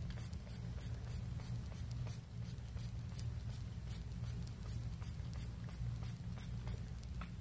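Hand-pumped plastic spray bottle misting water onto hair: quick repeated squirts of hiss, about three a second, over a steady low hum.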